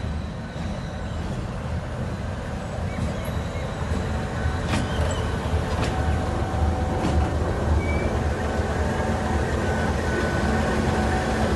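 A Pakistan Railways GEU-20 (GE U20C) diesel-electric locomotive rolls slowly past close by as it comes into the platform. Its diesel engine gives a steady low rumble that grows louder as it comes alongside, with a few sharp clicks around the middle.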